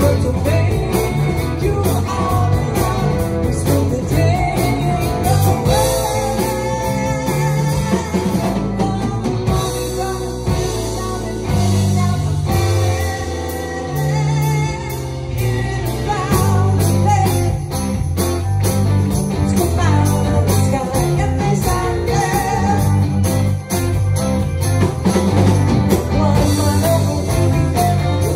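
Live rock band playing: a woman singing lead over electric guitars, bass, drums and keyboards.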